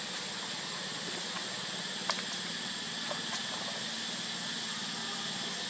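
Steady high insect chorus, an even hiss, with a few faint sharp clicks, the clearest about two seconds in.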